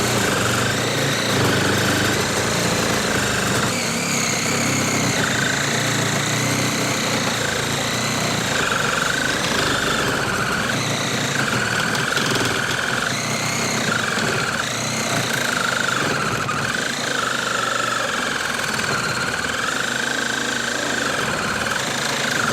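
HART 20V cordless reciprocating saw running flat out through a test cut. Its motor whine wavers in pitch as the blade's load changes.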